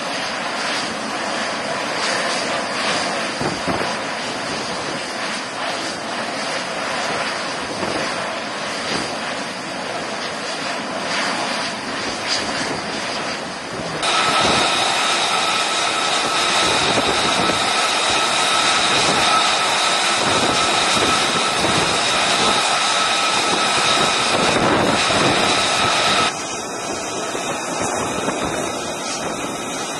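F-35C Lightning II jet engine (Pratt & Whitney F135) running on a carrier flight deck: a steady broad jet noise that turns louder about halfway, with a steady high-pitched whine over it. The whine cuts off suddenly near the end, leaving a quieter jet rumble.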